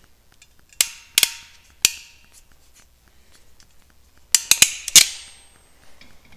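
Hand ratcheting crimper clicking sharply as its handles are squeezed to crimp a terminal pin onto a wire: a few clicks about a second in, then four in quick succession around four and a half seconds in, the last one the loudest.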